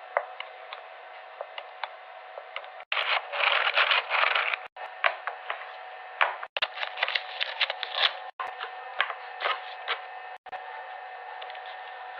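Fidget toys being handled close to a phone microphone: irregular sharp clicks and crackles over a steady thin hiss, with abrupt cuts every second or two between short clips.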